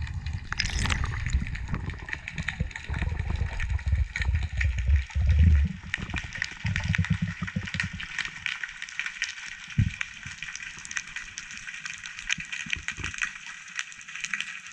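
Underwater sound through a diver's camera housing as the freediver swims down: low rushing, thumping water noise for the first eight seconds or so, then mostly a steady fine crackle of small clicks.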